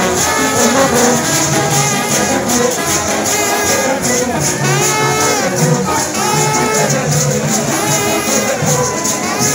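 Loud live street-band music: horns play a wavering melody over drums and shaken percussion, with a crowd around it.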